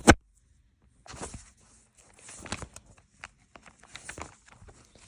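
A sharp knock at the start, then bursts of rustling and scraping: paper and fabric being handled as a notebook page is turned and the phone is moved about over the bedding.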